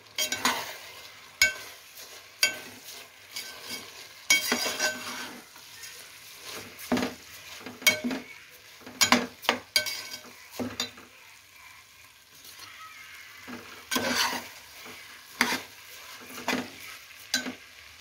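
A slotted steel spoon scrapes and knocks against an aluminium pot as rice is stirred and sautéed with vegetables. The strokes are irregular, some with a short metallic ring, over a faint steady sizzle.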